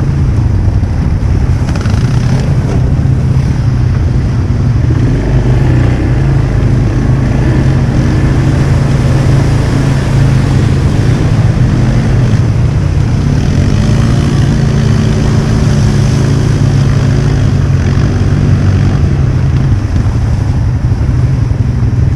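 ATV engine running steadily at low speed.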